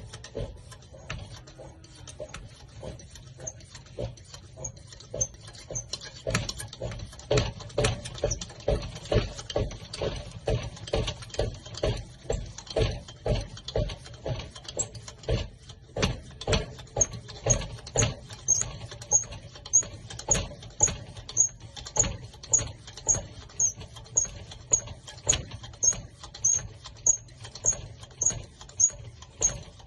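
Hand air pump of an AiDA kerosene pressure lantern being worked, a run of strokes with a small squeaky tick on each, settling into a steady two strokes a second about halfway through: the fuel tank being pressurised for lighting.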